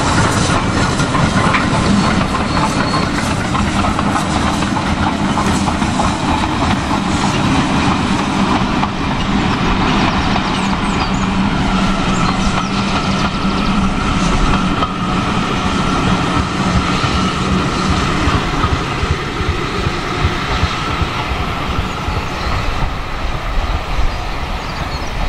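Steam-hauled passenger train passing, the coaches' wheels clickety-clacking over the rail joints, easing off a little near the end as the last coaches go by.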